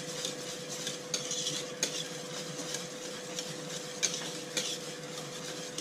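Wire whisk stirring a thick chocolate cornstarch mixture in an aluminium pot, its wires scraping the pot in repeated uneven strokes, one or two a second. A faint steady hum runs underneath.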